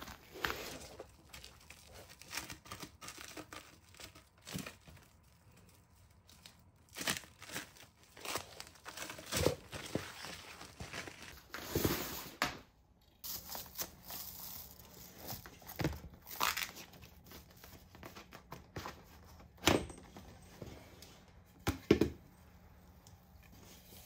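Irregular crinkling and tearing of packaging, with several sharp handling knocks, loudest near the middle and near the end.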